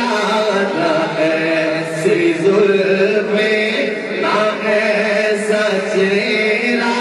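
A man's voice reciting a naat, the Urdu devotional poem in praise of the Prophet, sung in a chanting style with long held, wavering notes and no instruments.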